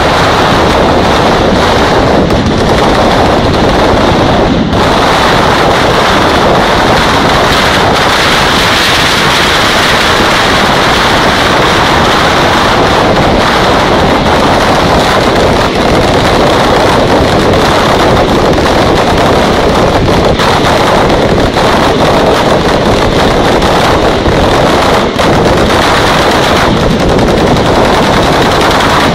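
Mascletà firecrackers, masclets and strings of petards, exploding in a dense, unbroken barrage of rapid bangs.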